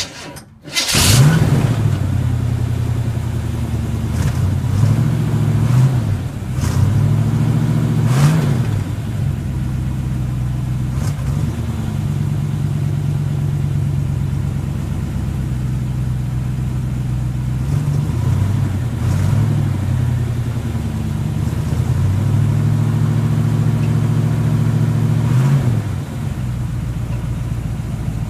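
Cold start of a newly installed V8 engine in a Chevy LUV pickup: a brief crank, it catches about a second in, then runs at a steady idle with several quick rev blips. Near the end the idle drops lower and quieter.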